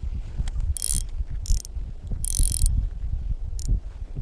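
Spinning reel whirring as its handle is cranked in about four short spurts with pauses between, the stop-and-go retrieve of a jig, over a low wind rumble on the microphone.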